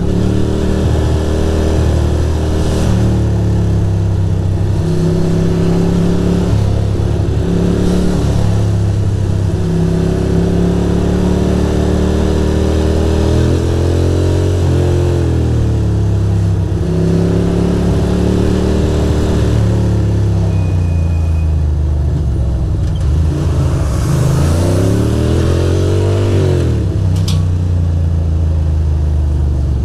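2006 Ducati Monster 620's air-cooled L-twin engine running under way, its pitch stepping up and down with throttle and gear changes. About three-quarters of the way through it revs up and falls back.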